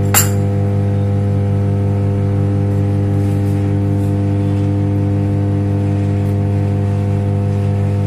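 Microwave oven preheating: a steady, low electrical hum with a faint regular pulse. A metal spoon clinks once against a bowl just at the start.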